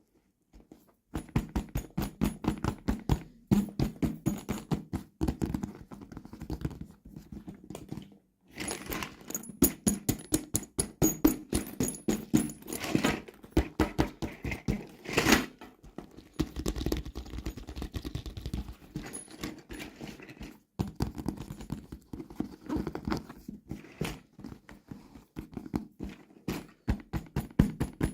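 Toy packaging being handled and opened: a rapid string of plastic taps, clicks and small knocks, with a couple of short pauses.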